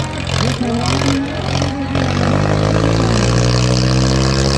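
Diesel engines of two tractors, a New Holland 3630 Super and a Swaraj 744 FE, running hard under full load while pulling against each other in a tug-of-war, blowing black smoke. People shout over them during the first two seconds; after that the engine note steadies and grows a little louder.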